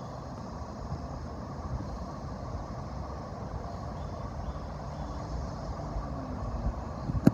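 Steady low rumbling outdoor background noise with no goose calls, and one sharp knock near the end.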